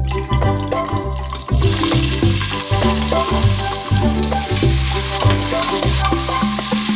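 Food frying in hot oil, a loud steady sizzle that starts about a second and a half in, over background music with a steady bass beat.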